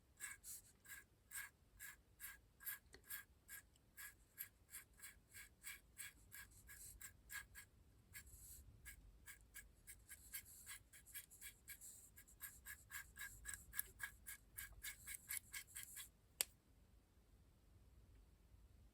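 Stiff brush scrubbing powder pigment onto a plastic model locomotive's bodywork: faint, quick scratchy strokes, about three a second, that stop near the end with a single click.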